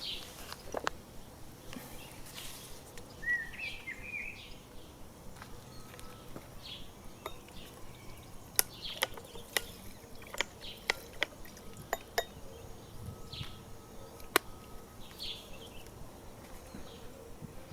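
A run of sharp, irregular clicks or taps, roughly one or two a second through the middle of the stretch, over scattered small bird chirps.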